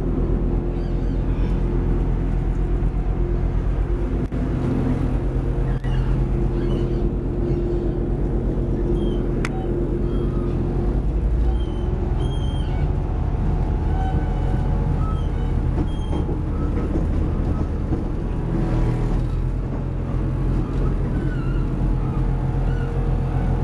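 Steady low drone and rumble of a moving train heard from inside the carriage, with a few faint short high squeaks in the second half.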